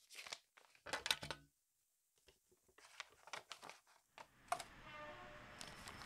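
A paper envelope being slit open with a letter opener and handled: short bursts of paper rustling and tearing, loudest about a second in, with more scattered crinkles after. A steady low hum comes in about four seconds in.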